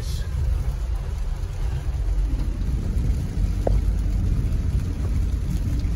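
Heard from inside a Toyota Prius driving through a downpour on a flooded street: a steady low rumble of the car and its tyres in the water, mixed with the hiss of heavy rain on the car. A short squeak comes just past the middle.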